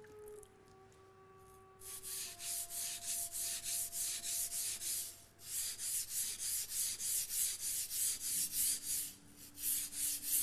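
Japanese kitchen knife blade rubbed on a wet coarse #120 whetstone: quick rasping strokes, about three a second, starting about two seconds in with a brief pause a little past halfway.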